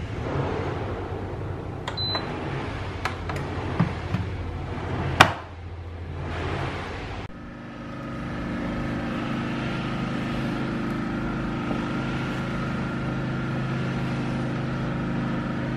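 Tefal multicooker's control panel being operated: a short high beep as a button is pressed, a few light clicks and a sharp click a little after five seconds, over a steady low hum. About seven seconds in the hum changes abruptly to a different steady hum with a few held tones.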